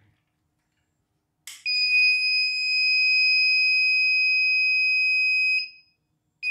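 CNY E900 portable embroidery machine's buzzer giving one long, steady high beep of about four seconds as the machine powers up and responds after a mainboard replacement. The technician takes the overlong beep as a sign that the power supply is unstable.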